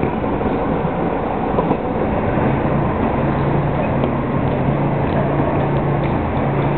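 Running noise of a departing JR commuter train: a steady, dense rumble of wheels on rail. A low steady hum comes in about two seconds in.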